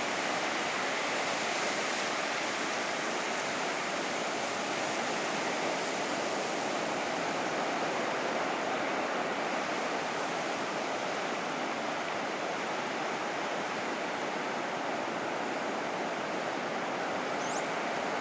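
Sea surf washing onto the beach: a steady, even rush of noise without distinct separate wave crashes.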